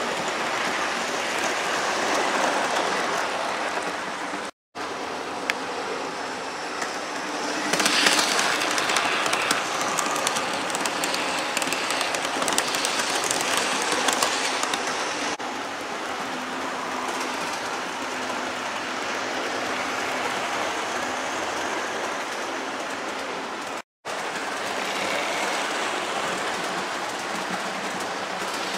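Model railway trains running on the track: a steady rattle of small wheels over rail joints, with a motor hum, loudest as a rake of coaches passes close by about 8 seconds in. The sound cuts out briefly twice.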